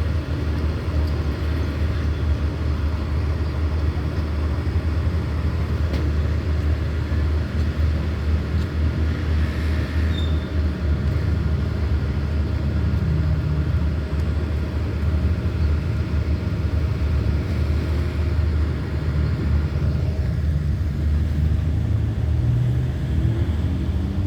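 Hitachi diesel-electric locomotive's engine running steadily with a deep, even drone.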